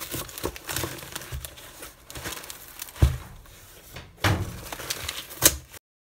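Cardboard shipping box being torn open by hand: repeated ripping and crinkling of cardboard, with a sharp thud about halfway through and another near the end. The sound cuts off abruptly just before the end.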